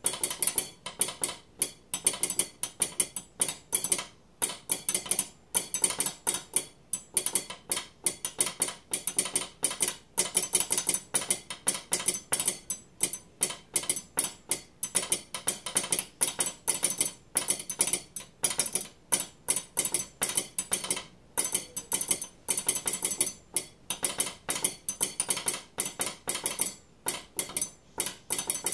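A metal spoon tapped rapidly against a table knife, imitating a railway telegraph sounder: sharp metallic clicks in quick groups with short pauses between them, sending Morse-style telegraph code of the Mexican railways.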